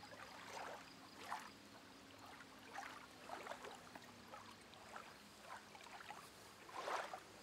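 Faint, scattered little splashes and drips of water as a hand and planting tweezers work in a half-filled aquarium, pushing plant stems into the gravel.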